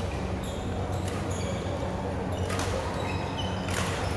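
Badminton rally: two sharp racket hits on the shuttlecock about a second apart in the second half, with sneakers squeaking on the court floor. A steady low hum runs underneath.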